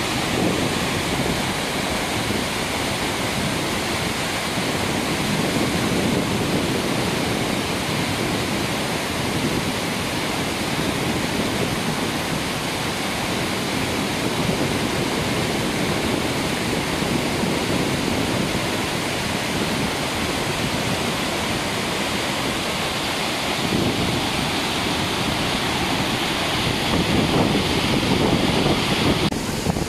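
Waterfall water crashing down over rock: a steady rushing noise, slightly louder near the end.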